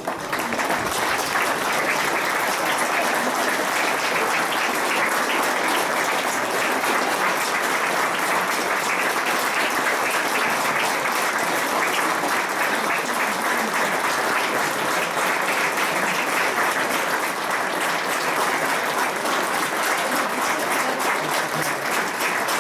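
Sustained applause from the stadium crowd and the lined-up players: many hands clapping in a dense, steady patter that neither builds nor fades.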